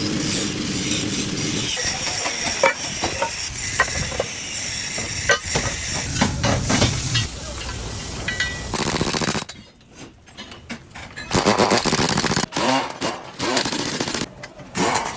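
Repeated sharp metallic knocks and clinks over a steady mechanical drone, as from hammering on excavator track chain links. The noise drops away briefly about two-thirds of the way through, then returns rougher, with a wavering engine-like tone.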